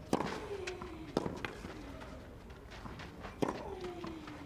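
A tennis rally: rackets strike the ball, with the loudest hits at the start and about three and a half seconds in, and softer ones between. Each of the two loud hits is followed by a short vocal grunt from the player that falls in pitch.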